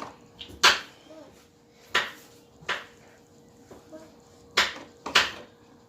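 Sharp metallic clinks and knocks of hand tools working on a mini bike's chain, about six at irregular intervals.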